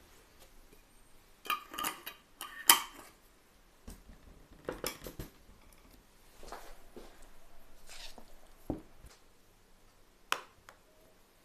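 Glass pickle jars and a metal twist-off lid being handled on a table: clinks and knocks, loudest about two seconds in, a scraping stretch as the lid is screwed shut, and a sharp knock near the end as a jar is set down.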